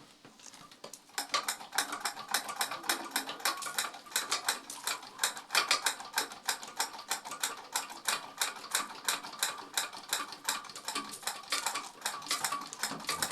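Rapid, irregular clicking and clattering, several clicks a second, from a spinning fan with pink objects riding on its blades. It starts about a second in.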